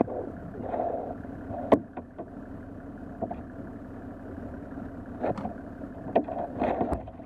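Four-wheel-drive vehicle's engine running steadily at low revs, with several sharp knocks over it, the loudest a little under two seconds in.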